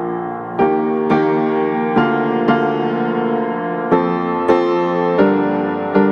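Slow, gentle piano music, one note or chord struck about every half second to a second and left to ring.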